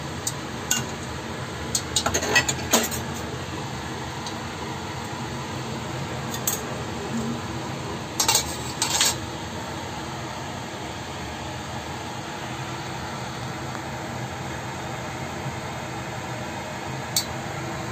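Metal spatula clinking against a stainless steel wok, sharp clinks in small clusters about two and eight seconds in, over a steady background hum.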